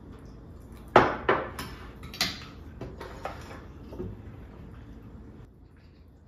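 Knives and forks clinking against plates during a meal: a run of sharp clinks, the loudest about a second in, then several more over the next three seconds before it settles.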